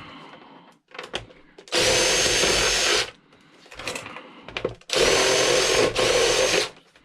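Power drill with a bit extension spinning out Phillips screws in two runs, the first about two seconds in and the second about five seconds in, each lasting a second or so with a high motor whine. Light clicks and handling noise between the runs.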